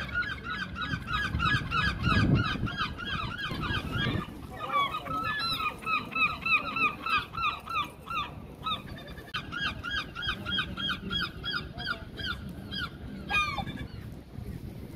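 Gulls calling: long runs of rapid, repeated yelping calls, about five a second, in three bouts with short breaks about four and nine seconds in, thinning out near the end.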